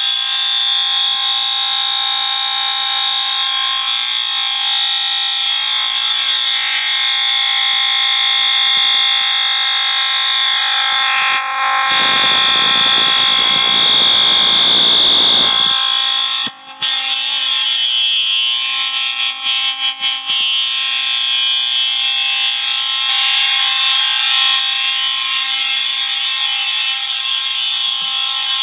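Several fire alarm horns sounding together in one steady, loud, continuous blare, among them a Wheelock MT-24-LSM multitone horn set on continuous horn, all in alarm after the pull station was pulled. For a few seconds around the middle, rough handling noise on the phone's microphone covers them, and the sound dips briefly just after.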